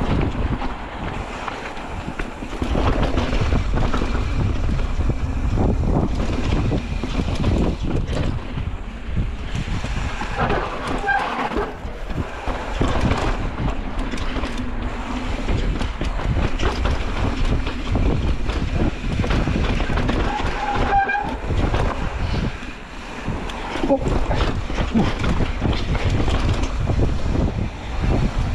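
Mountain bike ridden fast down a rocky dirt trail: a continuous rumble of tyres over dirt and rock and the rattle of the bike, broken by many sharp knocks as it hits rocks and roots.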